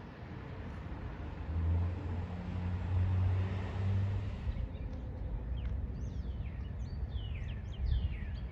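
A low, steady engine drone lasts until about four seconds in. After that, songbirds chirp in a run of quick calls that rise and fall in pitch.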